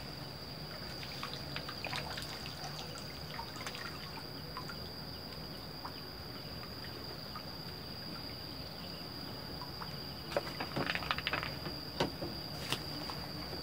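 Water trickling and dripping from a landing net lifted out of a reservoir, with a cluster of small splashes and knocks near the end as the net and its wooden handle are handled. A steady high thin whine sits under it.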